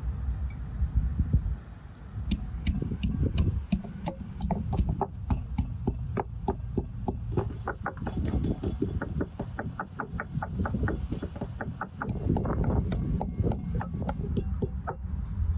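Knife chopping rapidly on a cutting board, a steady run of sharp chops at about four a second, over a low rumble.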